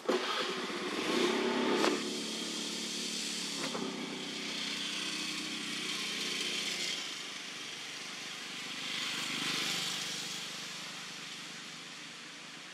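A motor vehicle's engine running, a steady low hum with a hiss above it, loudest in the first two seconds, swelling again near the ninth second and then fading away.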